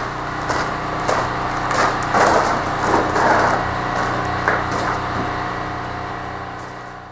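A steady machine hum under irregular scraping and sharp clicks and knocks, with the scraping loudest in the middle; the sound fades out near the end.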